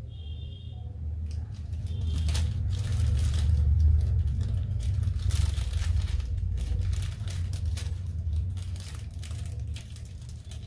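Hands rummaging through small parts and packaging: irregular rustling with scattered clicks, loudest in the middle, over a steady low rumble.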